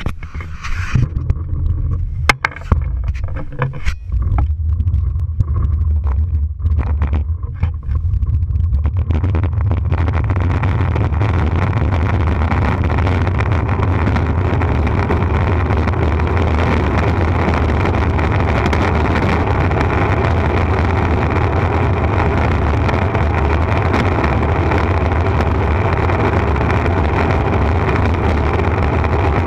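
Downhill longboard rolling fast on asphalt, heard from a camera mounted on the board: a few knocks and clicks in the first seconds, then from about a third of the way in a loud, steady rumble of wheels on the road mixed with rushing air.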